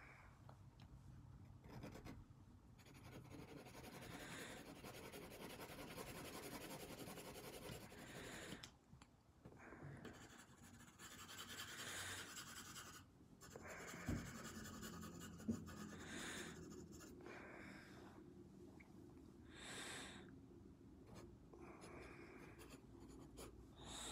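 Faint scratching of a graphite pencil shading on paper, in runs of strokes with short pauses between them. A couple of brief knocks about halfway through.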